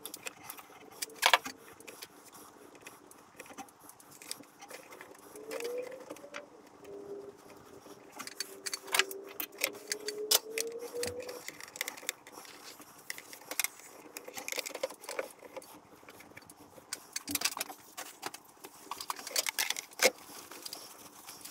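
Scattered small metallic clicks and clinks of a wrench and steel brake-line fittings being handled while the hard lines are threaded back into a master cylinder.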